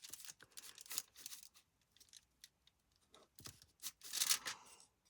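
Paper scraps being handled and cut with scissors: a scatter of small sharp snips and crinkles, with a longer paper rustle about four seconds in.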